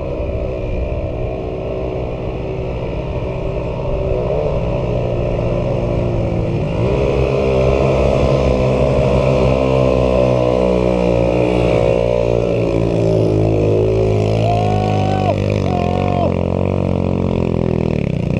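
ATV engines running, a steady engine note that gets louder about four seconds in, with revving that rises and falls in pitch later on as a machine climbs the hill.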